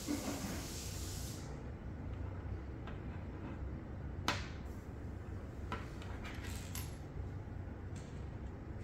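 Small hard kit parts being handled: a brief rustle at the start, then a few light clicks and taps, the sharpest about four seconds in, over a steady low hum.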